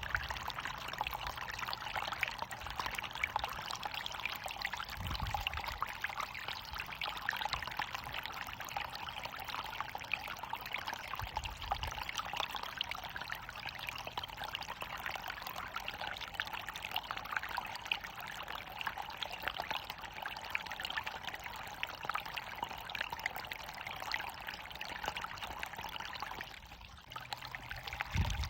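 Water falling and running in a steady splashing rush, as of a waterfall, dipping briefly near the end.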